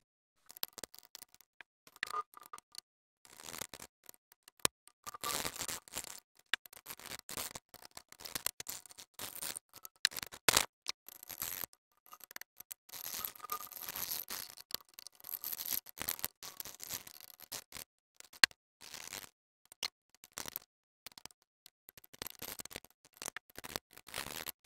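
Old silicone sealant being scraped and picked off a BMW headlight housing: irregular rasping scrapes mixed with small clicks and ticks.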